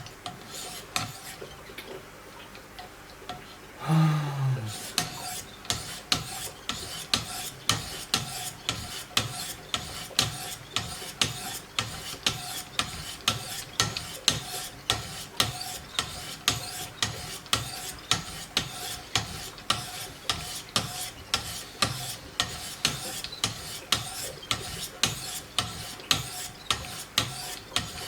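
Diamond sharpening stones of a Wicked Edge guided system being drawn along a knife blade's edge in quick, even strokes, about two a second. The strokes begin about four seconds in, after a louder scrape.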